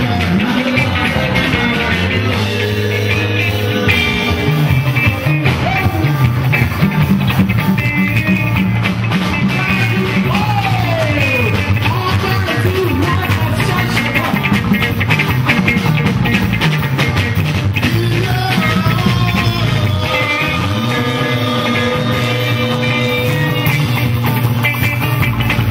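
Live band playing: electric guitars over a steady bass line and beat, with voices singing.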